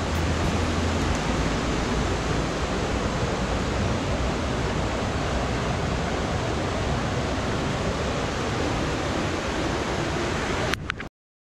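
Mountain river water rushing steadily over rocks in a small cascade into a pool. It cuts off suddenly near the end.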